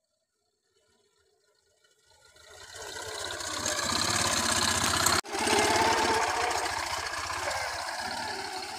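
Small motorcycle engine running as the bike rides past, its sound rising out of near silence over the first few seconds. It is loudest about halfway through, breaks off for an instant just after that, then fades slowly as the bike moves away.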